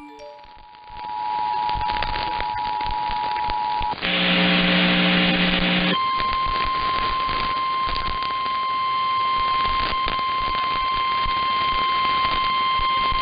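Emergency Alert System two-tone attention signal, with a brief dropout at the start, stopping about four seconds in. A harsh buzz follows for about two seconds, then the single steady tone of the NOAA Weather Radio warning alarm, all over crackly static.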